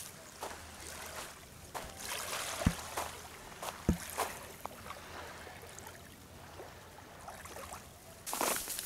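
Small waves lapping and washing on a lake's sandy shore, with a few scattered soft knocks. Near the end a louder scuffing noise starts.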